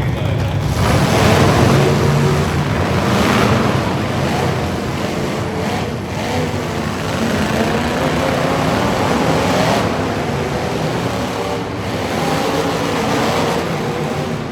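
Truck engine running loud under throttle, its pitch rising and falling, over a heavy rushing noise.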